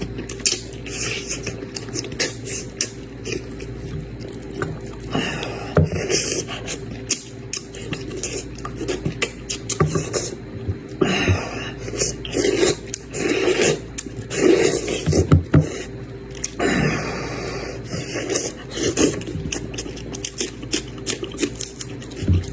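Close-miked eating: chewing, with many small clicks and scrapes of utensils against a dish.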